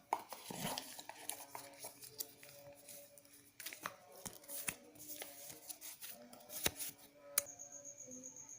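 Packaging being handled while a digital watch is unboxed: crinkling and rustling with scattered clicks and taps. Near the end comes a sharp click, then a steady, high-pitched, evenly pulsing tone.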